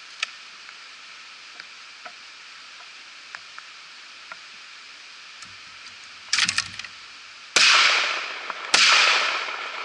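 Two 12-gauge shotgun shots about a second apart, each a sharp crack that fades out over roughly a second, fired at skeet. They are preceded about a second earlier by a short clatter of clicks, over a steady hiss.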